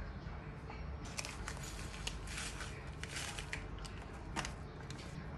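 Foil spice sachet crinkling and rustling as achari masala powder is shaken out of it into a bowl. The crinkles come in a quick run from about a second in until near the end, over a low steady room hum.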